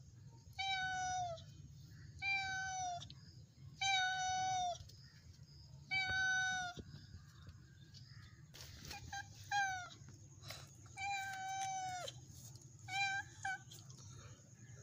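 A young tabby cat meowing repeatedly, about eight meows: four long, evenly spaced ones in the first seven seconds, then shorter ones after a pause. Each meow falls slightly in pitch at its end.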